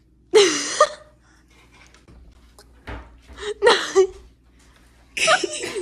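Three short, high-pitched vocal outbursts, laughing or squealing rather than words, with quiet gaps between them.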